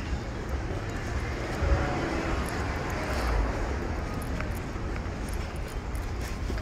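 Street traffic: a car passing on the street, its noise swelling and fading in the middle, over a steady low rumble.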